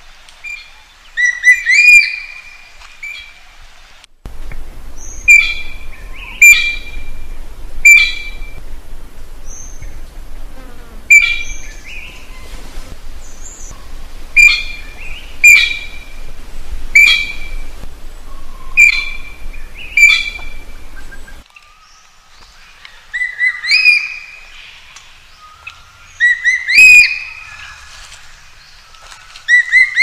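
A magpie giving a long series of short, sharp calls, about one a second. A steady low background noise runs under the calls through the middle of the stretch.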